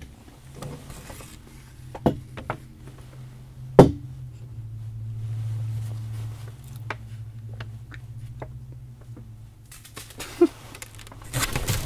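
Scattered light clicks and knocks of small objects being handled, with one sharp knock about four seconds in and a low hum for a few seconds after it.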